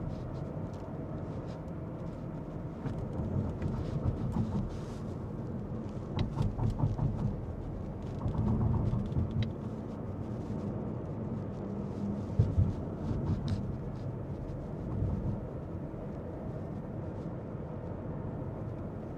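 Road and engine noise inside a moving car: a steady low rumble with a few louder swells along the way.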